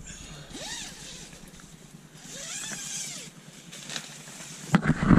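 A motor vehicle running, its pitch rising and falling twice. Knocks and louder sounds near the end.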